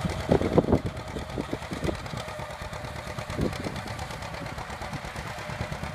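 1942 John Deere Model A two-cylinder tractor engine running steadily with a fast, even low popping beat while pulling a plow. A few brief louder sounds stand out less than a second in.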